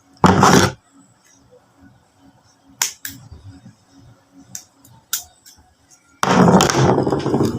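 Fishing tackle being handled while a squid rig is put together: a short noisy burst, a few sharp clicks through the middle, then a longer noisy stretch near the end.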